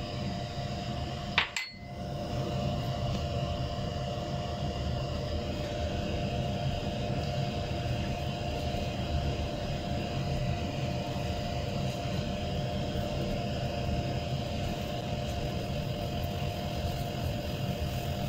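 A steady machine hum with a low rumble and a constant mid-pitched tone, with one sharp clink about a second and a half in.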